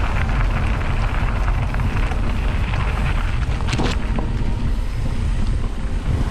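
Wind buffeting a GoPro action camera's microphone during a mountain-bike ride, a loud, steady low rumble with scattered small clicks and rattles and one sharper knock about four seconds in.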